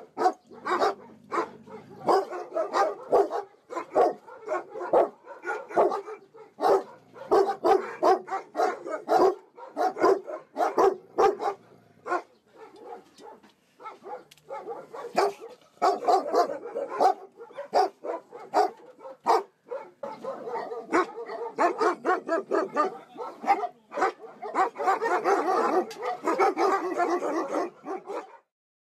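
Dogs barking over and over, with a quieter stretch about halfway through.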